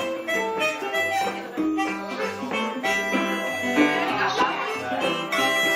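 Harmonica playing a melody of held notes, backed by strummed guitar and a low bass line in a small acoustic group.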